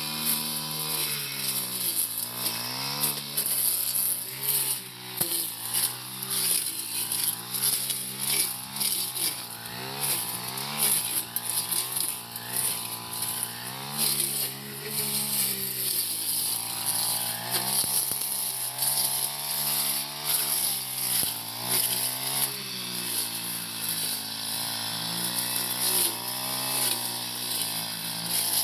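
Four-stroke brush cutter engine running under load while cutting tall grass and brush, its pitch repeatedly rising and falling as the throttle is worked.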